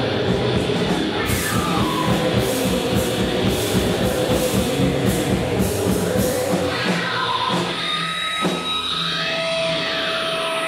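Live rock band playing drums, electric guitar and keyboards. About six and a half seconds in, the drums and low end stop, leaving held synth and guitar-effect tones with sweeping pitch glides rising and falling.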